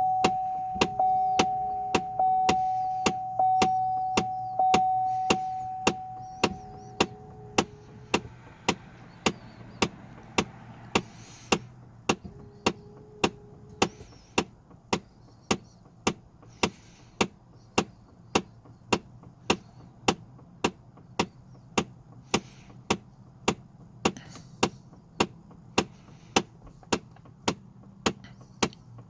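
Failing HVAC blend door actuator behind the dashboard of a Chevrolet Trailblazer/GMC Envoy, clicking steadily about once every two-thirds of a second; the clicking is the sign of the failed actuator that leaves air blowing only from the windshield vents. A steady electronic tone sounds with it for the first several seconds, then stops.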